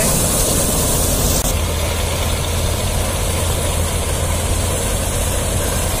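Crop Winnower combine harvester running while cutting wheat: a steady low engine drone with the clatter and hiss of the header and threshing gear, the hiss changing abruptly about a second and a half in.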